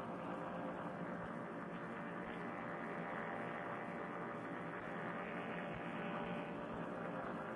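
Paramotor trike engine and propeller droning steadily in cruise flight. The sound is picked up through a Bluetooth helmet-headset microphone, so it is muffled and thin, with no highs.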